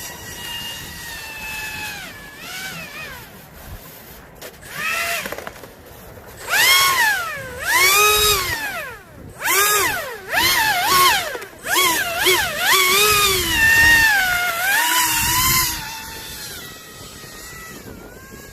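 Brushless electric motor and propeller of a Pro Boat Aerotrooper RC airboat whining as it is throttled up and down. The whine rises and falls in pitch over and over, with quick repeated revs from about six seconds in.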